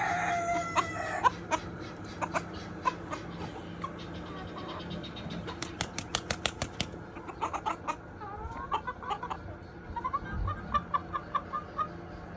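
Flock of chickens clucking, with a rooster's crow trailing off in the first second. Around six seconds in comes a quick run of about eight sharp clicks, and later short clucks repeat at about four a second.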